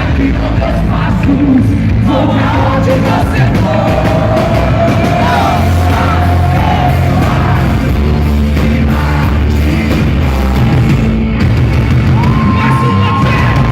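Live rock band playing with singing and the crowd audible, loud throughout; long held notes around the middle and again near the end.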